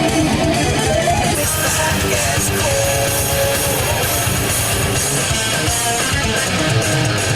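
Guitar-led background music, strummed, at a steady loud level.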